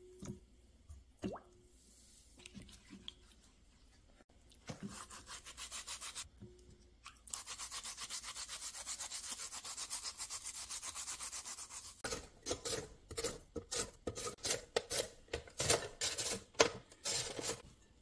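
Carrots knocking lightly against a glass bowl of water a few times, each knock leaving a short ringing tone. Then a carrot is scrubbed with a mesh scrub cloth in quick, even back-and-forth strokes. Near the end comes a louder run of uneven scraping strokes.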